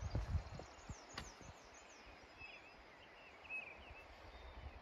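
Faint open-air ambience with a few short, high bird chirps in the middle, and a single sharp click about a second in.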